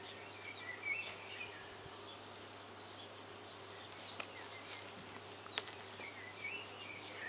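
Faint outdoor ambience: small birds chirping now and then over a steady low hum, with a couple of sharp clicks in the middle.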